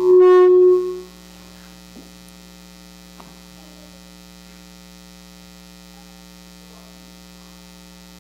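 A loud held tone with many overtones sounds for about a second at the start, then cuts off, leaving a steady electrical mains hum from the sound system.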